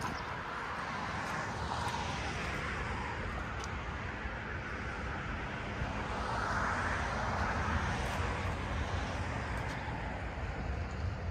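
Steady low vehicle hum with a broad rushing noise over it that swells about two seconds in and more strongly around six to eight seconds in.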